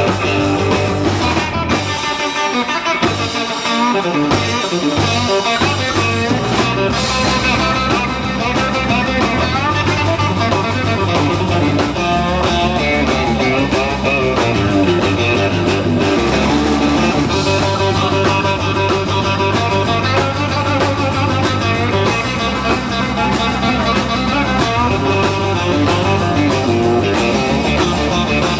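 Live rock band playing an instrumental stretch of a rock and roll song, led by electric guitar. The bass and drums drop away for a few seconds near the start, leaving mainly guitar, then the full band comes back in.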